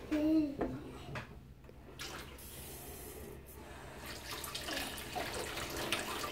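Water tap running into a stainless steel sink, coming on about two seconds in and splashing over hands held under the stream.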